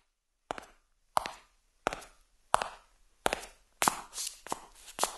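Footsteps on a hard floor: about six evenly paced steps, then a quicker run of taps near the end.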